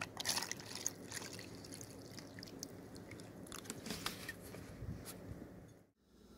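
Faint crackling and scattered small clicks as salt goes into a plastic tub of white vinegar around a cast copper skull, with light liquid sounds. It stops abruptly near the end.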